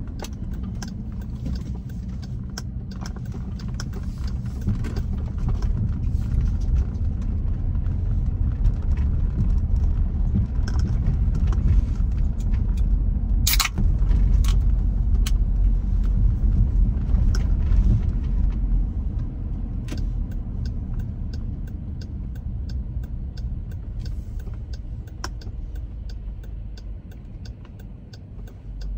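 Car road and engine rumble heard from inside the cabin, growing louder toward the middle and easing off near the end, with scattered light ticks and rattles and one sharp knock about halfway through.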